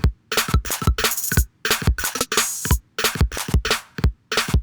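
Electronic drum-machine beat loop playing back: deep kick drums with a falling pitch and sharp hits several times a second, with two longer hissing cymbal-like hits about a second and two and a half seconds in.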